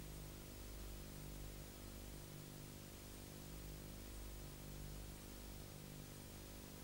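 Faint steady electrical hum with hiss under it, the empty soundtrack of a silent film. One low hum tone swells and fades every second or so.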